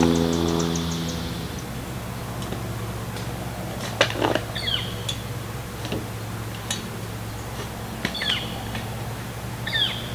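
A bird chirps a few short, falling notes, about three times, over a steady low hum, with a couple of sharp clicks in between.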